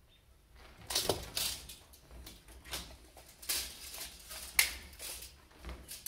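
Stiff 27-gauge galvanized hardware cloth being handled and pressed flat on a concrete floor, crinkling and rattling in irregular scrapes and clicks, with one sharper snap a little past halfway.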